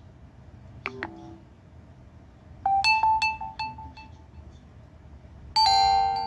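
HTC One E9+ notification tones played one after another through the phone's speaker: a faint short blip about a second in, a quick run of about six bright pinging notes around three seconds, then a louder chime near the end that rings on as it fades.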